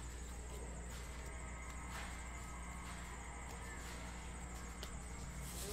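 Steady low hum of room tone with a few faint brushes and taps of trading cards being handled.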